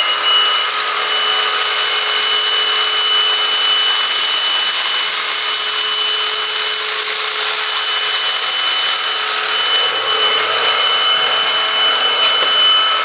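Silvercrest SHAZ 22.2 F7 cordless cyclonic stick vacuum running steadily in eco mode: a high motor whine over a rush of air. In the last few seconds it crackles as debris from the floor is sucked up.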